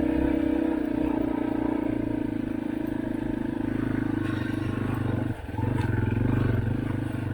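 Dirt bike engine running steadily under throttle as the bike rides through snow; about five seconds in the engine note briefly drops off, then comes back up.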